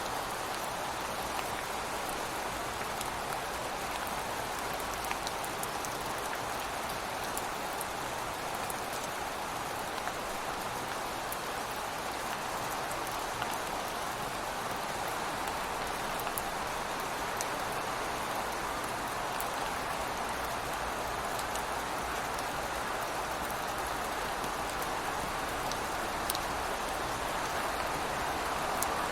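Steady rain falling outside a window, with occasional sharp drips landing close by.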